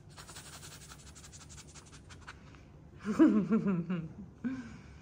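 Faint scratchy rustling, then about three seconds in a wordless, wavering vocal sound lasting about a second, and a shorter one near the end.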